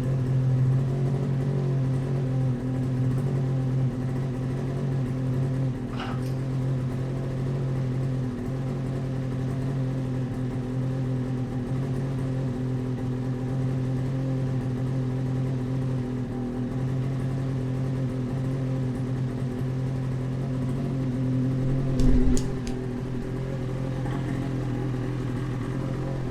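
Ski-Doo 850 Factory Turbo's two-stroke twin idling steadily. There is a faint click about six seconds in and a short loud knock near the end.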